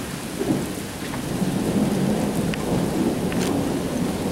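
Thunder rumbling low over steady rain, the rumble swelling about a second in.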